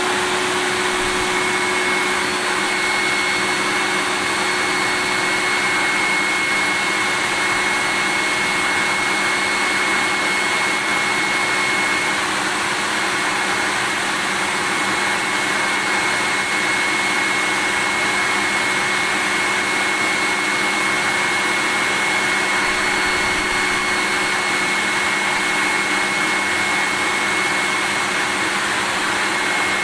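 Vacuum cleaner running continuously at a steady pitch: an even whooshing motor hum with a faint steady whine, unchanging, played as a soothing white-noise sound.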